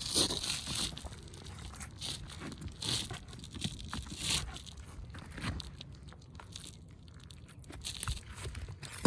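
Asphalt roof shingles being pried up to get at their nails: scraping, crackling and tearing as the sealed shingles are lifted and the nails worked loose. A few louder scrapes come in bursts, with a sharp knock right at the end.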